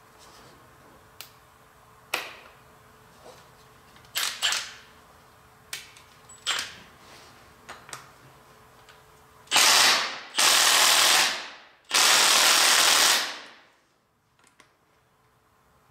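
Cordless impact wrench hammering in three loud bursts about halfway through, loosening bolts on the spindle nose of a horizontal boring mill, after a few light metal clicks and clinks as the socket is set on the bolts.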